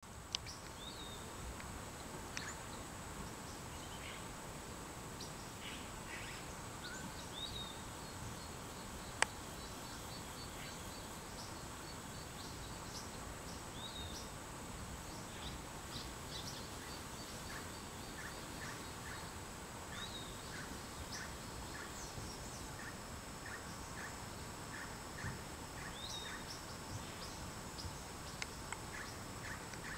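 Tropical forest ambience: a steady hiss with a constant high tone, and a bird's short rising-and-falling call repeated about every six seconds. In the second half a run of quick short calls joins in, and a single sharp click sounds about nine seconds in.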